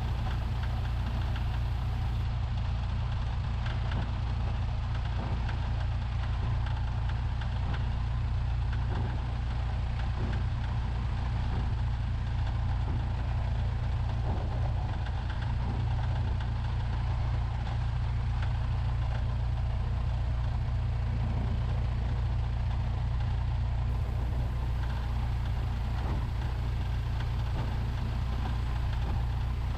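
1969 Cessna 172's four-cylinder Lycoming O-320 engine idling on the ground: a steady low drone that holds level throughout.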